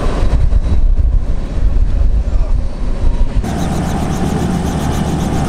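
Wind buffeting the microphone on an open airfield, a low rumble that swells and dips. About three and a half seconds in it gives way suddenly to a steady, even hum of distant engines with a faint held tone.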